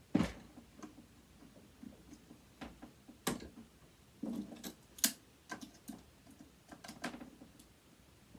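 Irregular clicks and taps of a flat-head screwdriver and metal parts as a stuck screw in a sewing machine motor is worked at. The sharpest clicks come a few seconds apart, with softer handling ticks between them.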